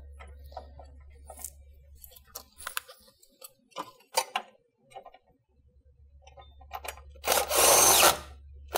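Light metal clicks and rattles as a bolt and socket are fitted, then, about seven seconds in, an 18-volt cordless power driver runs for about a second, spinning down the 13 mm bolt that holds the battery bracket.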